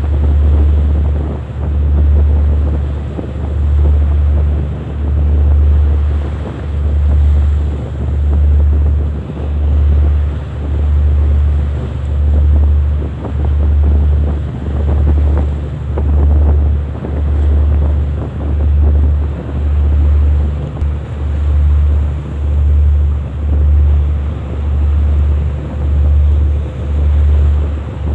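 Wind and sea noise with a strong low rumble that throbs regularly, about once a second, under a steady hiss.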